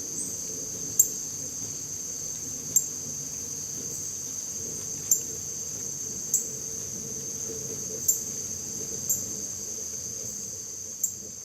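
Steady, high-pitched insect chorus of crickets or katydids, droning without a break, with a sharp click every second or two.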